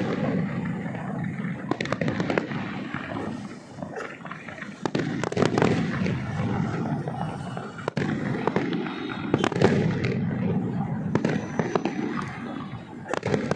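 Fireworks display: a continuous rumble of bursting shells, broken by sharp bangs every second or two, with crackling.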